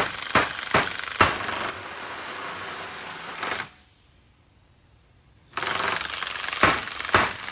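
Power tool hammering as it drives a clamshell bearing puller to pull a pinion bearing, a steady rattle with sharper knocks a few times a second. It stops about three and a half seconds in, pauses for about two seconds, then starts again.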